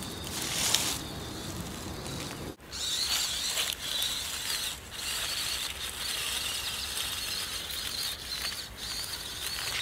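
Small wheg robot's electric drive motors whining at a wavering high pitch over the noise of its legs working across rough ground. The sound drops out briefly about two and a half seconds in.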